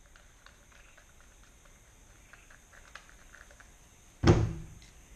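Faint small clicks and rustling as a sealant tube is handled, then a single loud thump about four seconds in, as something is knocked or set down on the van's sheet-metal roof.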